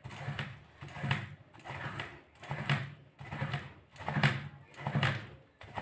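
Ripe palmyra palm fruit pulp rubbed by hand against a wooden scraper board set with metal teeth, in regular rasping strokes about one every 0.8 seconds, as the fibrous pulp is worked off the seed.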